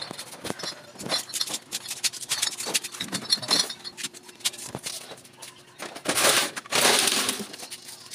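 Glass bottles clinking and knocking together in plastic crates as the crates are lifted and carried, with a louder scraping rush around six to seven seconds in.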